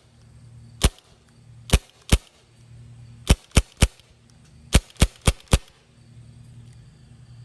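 Non-blowback CO2 airsoft gun firing ten sharp pops: a single shot, then a pair, then three, then four in quick succession. There is no slide cycling, which saves CO2.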